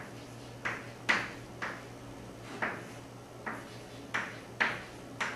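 Chalk on a blackboard: about eight short, sharp taps and scratches at uneven intervals as a line of symbols is written.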